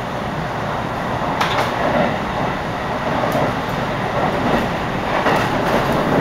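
Running noise of a JR Chuo Line rapid electric train at speed, heard inside the carriage: a steady rumble of wheels on rail, with a few short clicks from wheels passing over rail joints.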